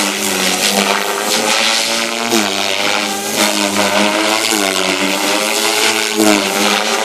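Devil 420 electric RC helicopter in 3D aerobatic flight: main rotor and motor making a loud buzzing whine. The pitch dips and swoops back up several times as the blades load up through the manoeuvres.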